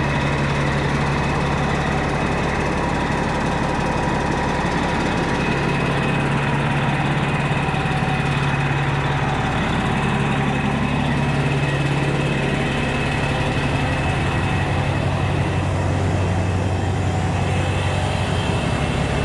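Heavy loaded water truck's diesel engine idling steadily, its note dropping slightly about 16 seconds in.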